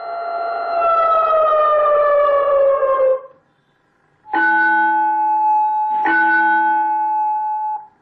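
Automatic school bell system's siren tone winding down, sliding lower in pitch until it cuts off about three seconds in. After a second's pause come two struck bell tones about two seconds apart, each ringing at a steady pitch before it stops.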